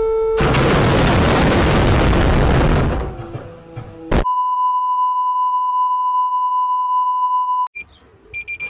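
Mock broadcast emergency-alert sounds: a steady electronic tone gives way to a loud burst of TV static that fades out after nearly three seconds. A click follows, then a steady high test tone that cuts off suddenly after about three and a half seconds, and then a few short high beeps near the end.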